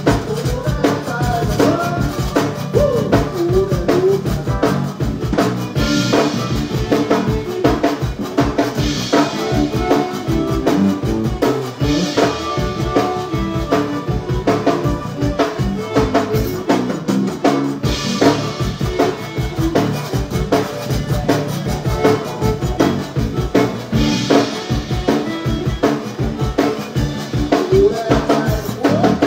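A zydeco band playing live to a steady drum-kit beat with bass and other instruments, with a cymbal crash every few seconds.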